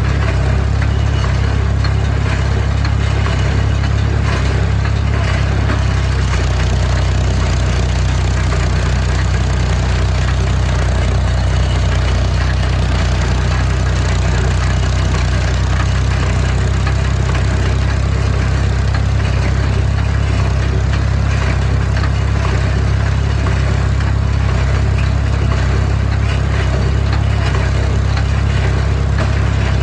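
Heavy farm machinery engine running steadily under load, a deep constant hum with an even mechanical din above it.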